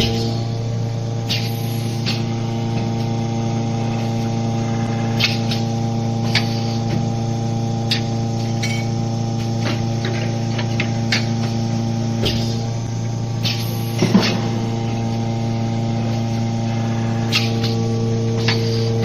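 Automatic can vacuuming and seaming machine running: a steady motor hum with several steady tones, broken by irregular sharp clicks and knocks, with a louder rattle of knocks about two thirds of the way through.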